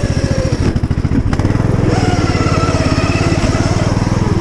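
Engine-swapped Poulan riding lawn mower running loud as it drives, its engine firing in a rapid, even pulse that gets louder about a second and a half in.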